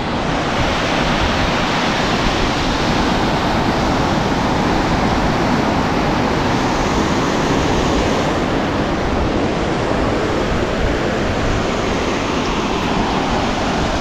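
River water pouring over the long crest of a concrete weir dam, a steady, even rush of falling water.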